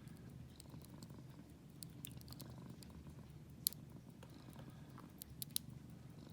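A cat purring steadily, low and soft, with a few faint sharp clicks in the middle and latter part, likely from the lock pick working the padlock's pins.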